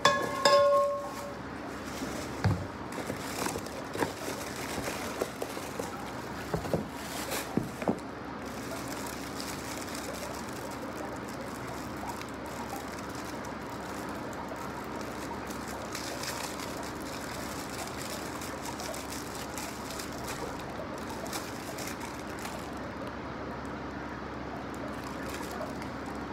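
Hands unboxing: cardboard flaps and plastic wrapping being handled, with a few sharp knocks and clicks in the first several seconds, then soft handling over a steady low hum. A short pitched sound at the very start is the loudest moment.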